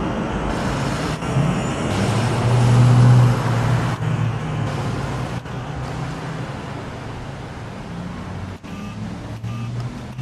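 Road traffic noise: a motor vehicle passes, its low engine hum and tyre noise swelling to a peak about three seconds in, then easing off.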